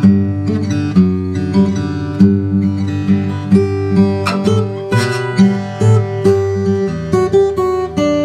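Steel-string OM acoustic guitar with a Brazilian rosewood back and sides and a torrefied Adirondack spruce top, played solo as a sound sample: notes plucked several times a second over ringing bass notes.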